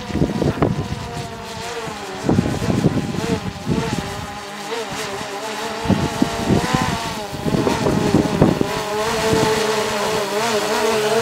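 Quadcopter drone's rotors whining as it descends toward the camera, the pitch wavering as the motors adjust and growing louder near the end. Low buffeting rumbles on the microphone come and go in the first half.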